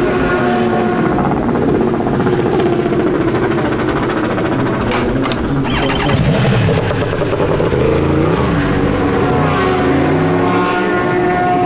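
Racing motorcycle engines running and revving, their pitch rising and falling, with a few sharp clacks about five seconds in.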